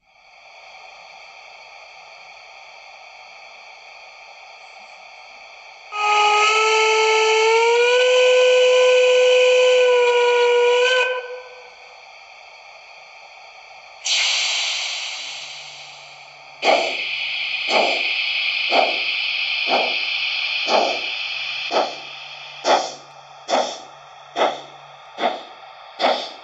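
Märklin 39889 H0-scale DB class 44 steam locomotive model's sound decoder playing steam sounds through its small speaker. A faint steady hiss comes first, then a long steam whistle that rises slightly in pitch. A burst of steam hiss follows, and then exhaust chuffs begin and quicken as the model starts to pull away.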